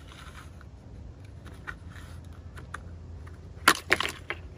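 Plastic retaining clips of a BMW Z4 door sill kick plate snapping loose as the trim is pried up sharply with a thin plastic card: light scattered clicks, then a quick cluster of sharp snaps near the end.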